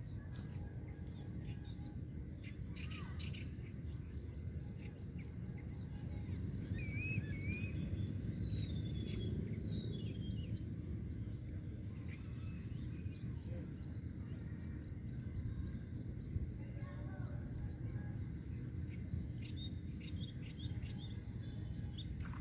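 Steady low rumble of wind, with birds chirping now and then, most in a short run of calls partway through.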